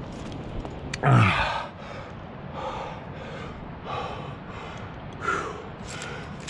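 A climber breathing hard from exertion. About a second in comes a loud voiced exhale that falls in pitch, followed by a run of short, heavy breaths.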